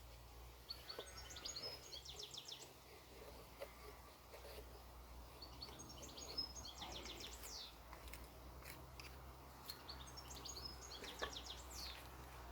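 A small songbird singing the same short phrase three times, about five seconds apart: a few scattered high notes running into a quick series of repeated strokes. Faint clicks and a low steady rumble sit under it.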